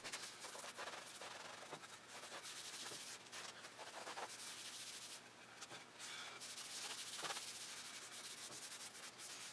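Cloth rag rubbing oil and wax conditioner into the surface of a walnut end-grain cutting board: faint, uneven back-and-forth wiping strokes, with a short pause about five seconds in.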